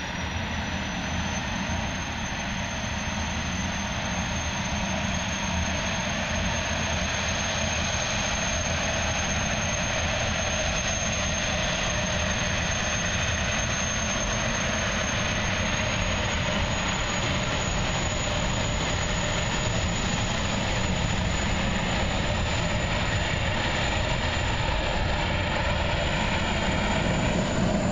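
Jetfoil high-speed ferry's gas turbines running as it leaves the harbour: a steady roar with a high whine that edges up in pitch, growing a little louder near the end.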